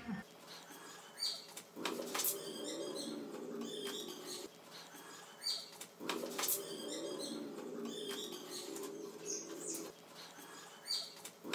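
Pigeons cooing, a phrase returning about every four seconds, with high chirps and a few sharp clicks in between.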